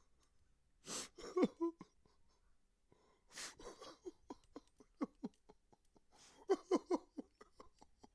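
A man crying: sharp, breathy gasping inhales and short sobbing cries that fall in pitch. The sobs come in quick runs, the longest of them near the end.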